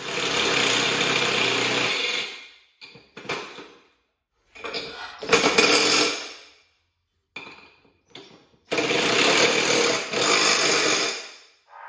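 Cordless impact driver with a deep well socket running on a mower deck's blade-spindle pulley nuts in bursts: three long runs of about two seconds each, with a few short blips between them.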